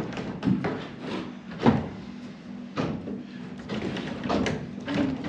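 A handful of short knocks and scrapes against wooden framing, the loudest about a second and a half in, as yellow sheathed electrical cable is pulled through holes in the wall studs.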